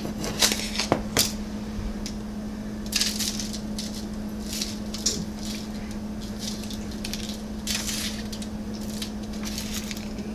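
Panko breadcrumbs being spooned and pressed onto cod fillets on a foil-lined baking sheet: a few sharp clicks of a metal spoon in the first second, then scattered short crackly rustles of crumbs and foil, over a steady low hum.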